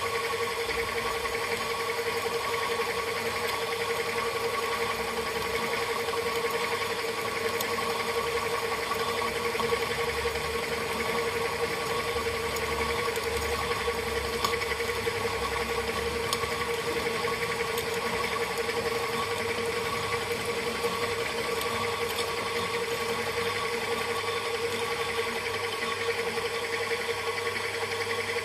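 Small milling machine running steadily with a constant whine, its end mill cutting metal around a stud.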